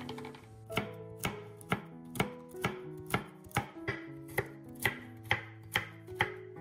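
Chef's knife chopping walnuts on a wooden cutting board: sharp, even knocks about two a second, starting just under a second in. Soft background music with plucked notes runs underneath.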